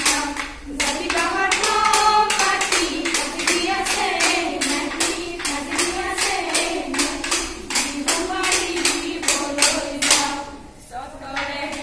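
Group of women singing a Jeng Bihu song in chorus over a steady beat of hand claps, about three a second. The singing drops away briefly near the end while the claps go on.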